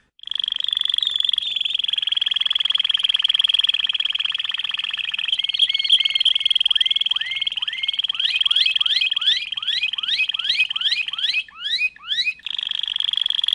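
Domestic canary singing: a long, fast trill, then a run of rising sweeping notes that repeat faster and faster, with a short break near the end.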